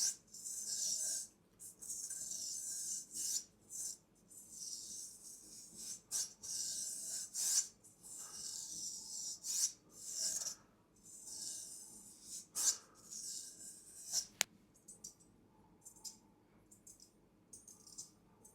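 Traditional straight razor scraping in repeated short shaving strokes, each a dry high-pitched rasp lasting about a second. About three-quarters through there is a sharp metallic click, after which the strokes come fainter and shorter.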